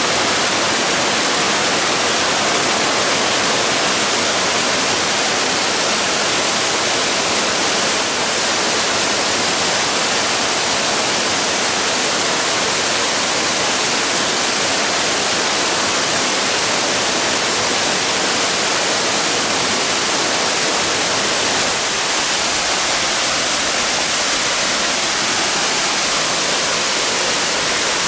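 Waterfall with a steady, loud rush of falling water.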